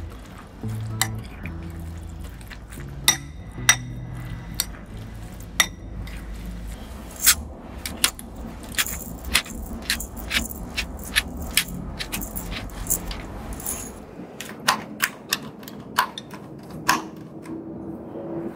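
A metal spoon clinking against a glass bowl while stirring tuna salad. Then the repeated crisp clicks of a hand pepper grinder grinding black pepper, over soft background music at the start.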